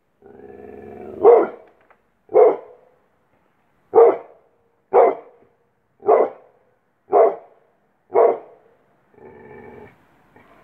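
Pit bull barking, seven deep single barks about a second apart, with a low growl before the first bark and again near the end.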